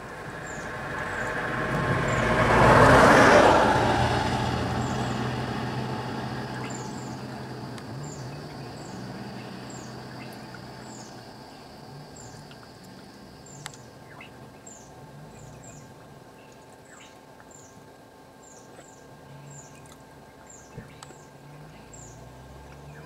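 A vehicle passing close on the road, its noise swelling to a peak about three seconds in and fading away over several seconds, over a low engine idle. A bird repeats a short high chirp about once a second, and there are two sharp clicks in the second half.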